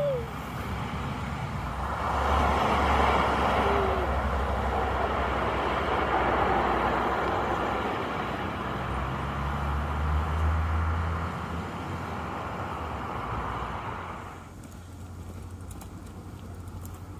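Sports car engines and exhausts as cars, among them a Mercedes-AMG GT, drive and accelerate past on a road. About fifteen seconds in it drops suddenly to a quieter, steady low engine hum, a parked Nissan GT-R idling.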